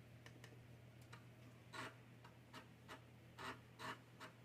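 Amiga 1010 floppy drive reading a disk: the head stepping in faint, irregular clicks and short buzzing seeks, over a faint steady hum. The drive is working and reading the disk even before head cleaning.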